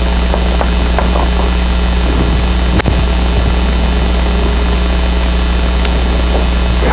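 Loud steady electrical mains hum with hiss, carried through the recording system, with a single sharp click a little under three seconds in.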